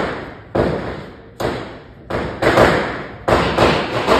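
Diwali firecrackers going off in a loud, uneven series of about eight sharp bangs, each trailing off in a short echo.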